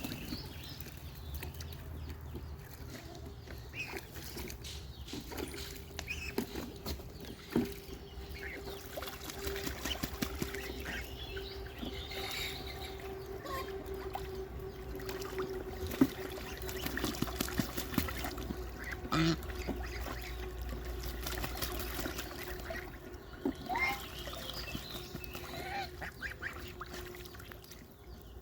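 Birds calling in short, scattered calls over a steady low hum.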